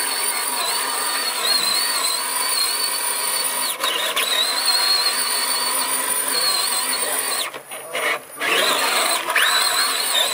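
Radio-controlled scale trail truck's electric motor and gears whining as it churns through mud, the pitch wavering with the throttle. The whine drops out briefly about four seconds in and twice more around eight seconds, then spins back up in a rising whine.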